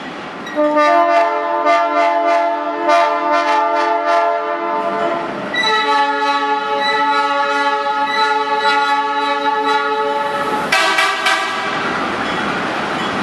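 Train horn sounding several notes at once: a long blast, a second long blast, then two short blasts near the end.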